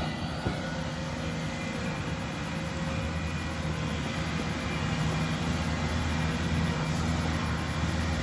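A skid steer's diesel engine running steadily, a low even drone that grows a little louder about five seconds in.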